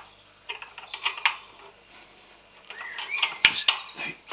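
Sharp metal clicks and clinks of a 17mm spanner working an M10 nut on a steel clamp: a few taps at first, a quiet moment, then a quicker run of clinks near the end.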